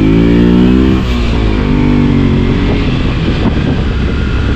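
Motorcycle engine accelerating: its pitch climbs, drops at a gear change about a second in, climbs again, then the engine runs on under rushing noise.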